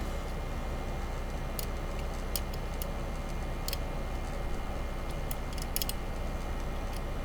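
A few faint, scattered metallic clicks of a lock pick working the pins inside a Kryptonite disc padlock, over a steady low hum.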